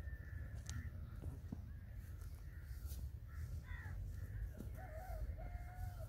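Faint crows cawing and other birds calling, with a longer wavering call near the end, over a steady low wind rumble on the microphone.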